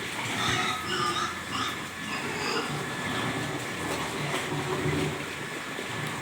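Pigs grunting, with short high-pitched calls in the first few seconds.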